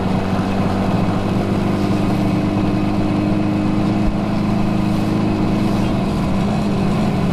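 Suzuki GT250 two-stroke parallel-twin engine running at a steady cruise under way, its pitch holding level with no revving.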